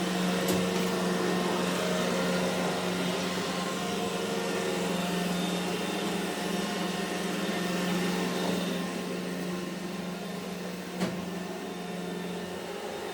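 iRobot Roomba E5 robot vacuum running: a steady motor and brush hum that grows a little fainter in the last few seconds, with a brief click near the end.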